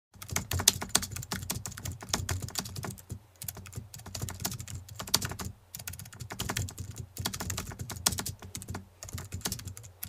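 Rapid computer-keyboard typing: quick, irregular keystroke clicks in runs, broken by short pauses about three seconds in, just before six seconds and near nine seconds.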